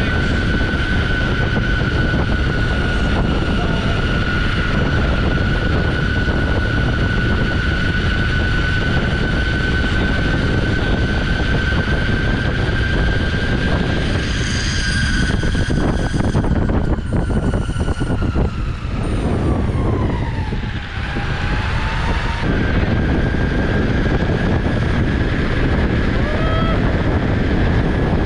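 Electric skateboard's dual hub or belt motors whining under hard throttle on a hill climb, over a low rush of wind and wheel noise. The whine holds a steady high pitch, sinks to about half that pitch some two-thirds of the way through as the board slows, then returns to the high pitch.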